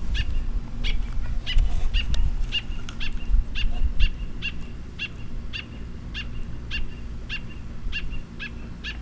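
A baby bird's begging chirps: short, high calls repeated evenly about twice a second while it is hand-fed, the sign of a hungry nestling. A low rumble sits under the first few seconds.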